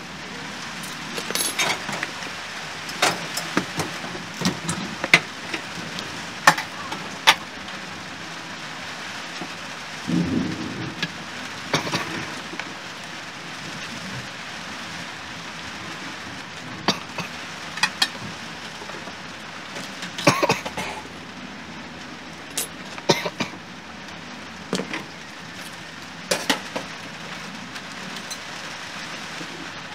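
Scattered clicks and knocks of hard parts being handled, with a short low thud about ten seconds in, over a steady hiss.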